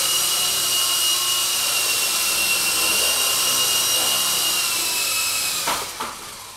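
Double Horse 9100 toy RC helicopter's small electric motors and rotors whining steadily in flight. Near the end there are a couple of knocks as it touches down on the floor, and the whine then dies away.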